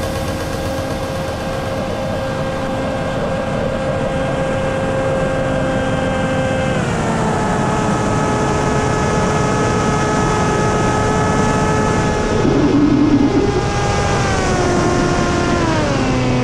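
Brushless electric motor and propeller of an FPV flying wing (Motrofly DM2820 950kv motor on a 9x7.5 prop) whining steadily, with wind rushing over the onboard camera. The whine drops in pitch about seven seconds in and steps down twice more near the end as the throttle is eased.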